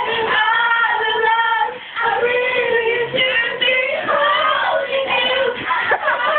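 Music with a high voice singing, holding long notes that slide in pitch now and then.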